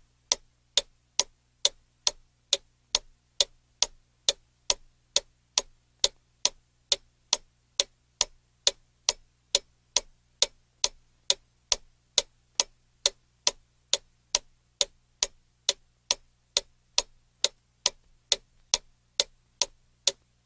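Clock ticking steadily, about two sharp ticks a second at an even pace.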